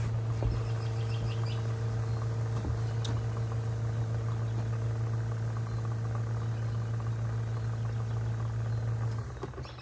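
Laundry machine running with a steady low hum that drops away about nine seconds in, with a few short high chirps near the start and again near the end.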